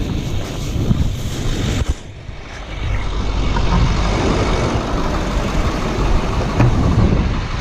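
Steady low rumble of a truck engine idling, with wind buffeting the microphone for the first two seconds.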